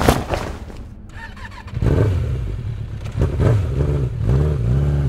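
A thud, then a motorcycle engine running and revving, its pitch rising and falling several times.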